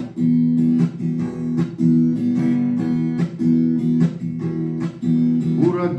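Acoustic guitar strumming chords in a steady rhythm, an instrumental break in the song; a voice comes back in singing right at the end.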